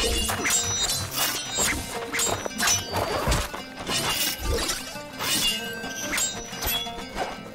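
Film soundtrack of a staff-against-sword fight: a quick run of whacks and clashes, two or three a second, over background music.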